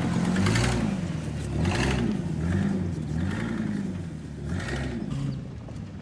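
Ford F250 Super Duty's gas V10 engine revving hard as the truck accelerates away over rough grass, its pitch rising and falling about once a second. It grows fainter as the truck pulls off into the distance.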